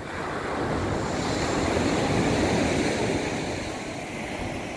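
Sea surf: a wave breaks and washes up the beach. The rush swells to a peak about two seconds in, then dies away.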